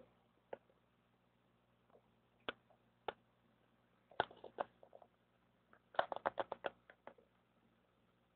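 Faint, scattered sharp clicks and taps, with a quick run of about eight clicks about six seconds in, over a faint steady low hum.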